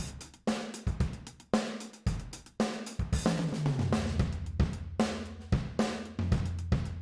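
Sampled acoustic drum kit from Addictive Drums playing a groove of kick, snare and hi-hat, with a run of falling tom hits starting about three seconds in and a last hit ringing out at the end. The kit is running through the TDR Molotok compressor plugin, which gives it some crunchy harmonics.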